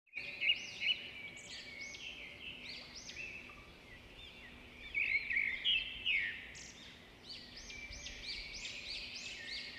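Many birds chirping and singing at once: a dense chorus of short, high, overlapping calls, busiest about half a second in and again around the middle.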